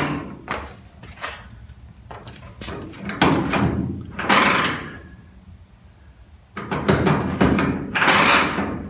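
Emergency-brake linkage of a 1950 Ford F1 being worked: a few light clicks, then two long scraping mechanical sounds of about a second and a half each as the parking brake is applied on the newly fabricated cable and barrel end.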